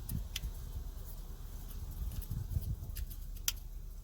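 A few small sharp clicks over low handling rumble as an LED bulb is pushed into the metal clips of a car's dome light socket.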